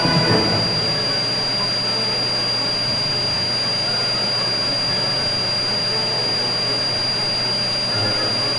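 A vacuum cleaner's motor running steadily, an even whir with a thin high whine over it. It cuts off suddenly near the end.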